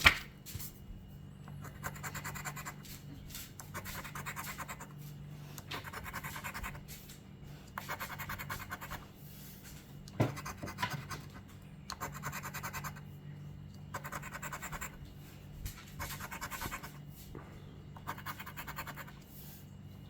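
Scratch-off lottery ticket being scratched, its coating scraped off in bursts of rapid strokes about a second long, roughly every two seconds. A sharp tap sounds at the start and again about ten seconds in.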